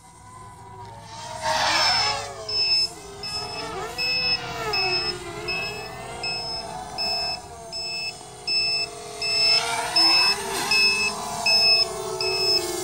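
Black Darter 250 quadcopter's motors whining, the pitch rising and falling with the throttle, loudest as it passes close about two seconds in and again near the end. Over it, an electronic alarm beeps steadily with short high beeps, about two a second, starting about two seconds in.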